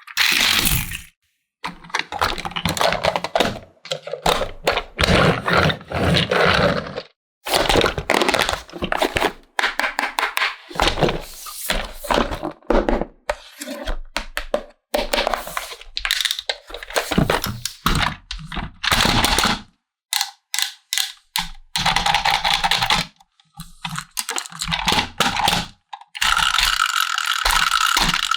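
Plastic toy playset pieces being handled: an irregular run of clicks, knocks and rattles with short pauses between them.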